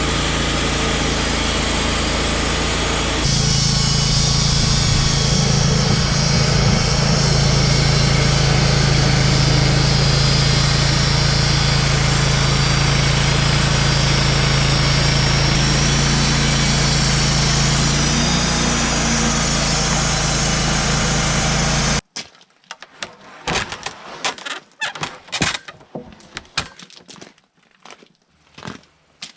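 A Wood-Mizer LT35 portable sawmill running: its engine and band saw make a steady loud drone that grows louder, with a stronger hum, about three seconds in, as the blade works through a hemlock log. About twenty seconds in the machine sound cuts off abruptly, and scattered knocks and clatter follow.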